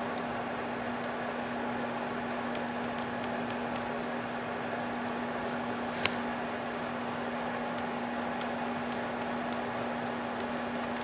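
Steady hiss with a low hum from a Galaxy DX959B CB radio's speaker, with talkback switched on. Faint light clicks come now and then, with one sharper click about six seconds in.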